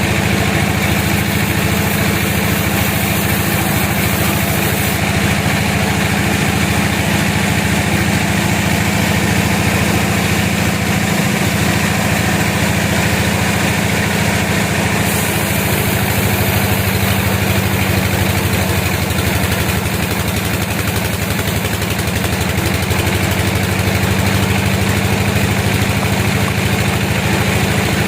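Sawmill machinery running steadily: a continuous low engine drone with mechanical noise over it, holding an even level throughout.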